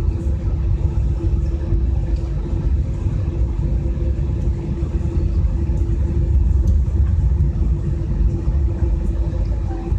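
Jet airliner cabin noise heard from a passenger seat: a steady low rumble of the engines and airflow with a constant hum.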